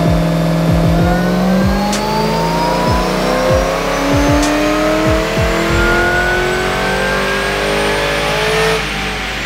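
Holden Commodore ute's engine on a chassis dyno run, its pitch climbing steadily through the revs for about nine seconds before it lifts off near the end.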